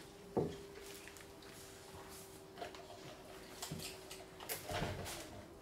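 Quiet handling noises at a table: a sharp click about half a second in, then light ticks and rustles of food and plastic packaging being handled, over a faint steady hum.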